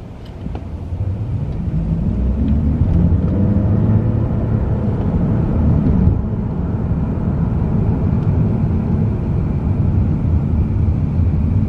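Steady low rumble that grows louder over the first two seconds, then holds.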